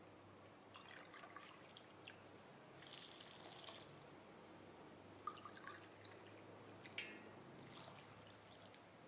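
Faint water pouring and dripping into a bowl of vegetables, with a couple of light clicks.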